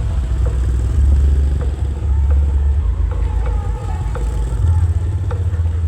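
Loud, booming bass from a sound horeg street sound system, the bass notes shifting pitch every second or so, with voices faintly over it.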